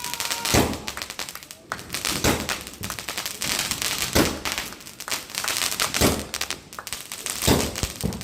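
A 25-shot firework cake firing, with five loud bangs spaced about one and a half to two seconds apart and smaller cracks between them.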